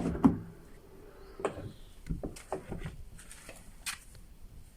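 Lada Vesta rear door being worked open and shut on its hinges and door-check strap: a series of short clicks and knocks with no squeal, the hinges freshly lubricated.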